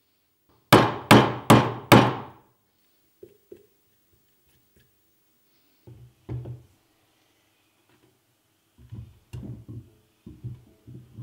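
Four quick, loud hammer taps about a second in, driving a steel drift to seat a new sealed ball bearing onto the end of an electric motor's rotor shaft; each tap rings briefly. In the second half come softer metal clunks and knocks as the rotor is fitted into the motor's stator housing.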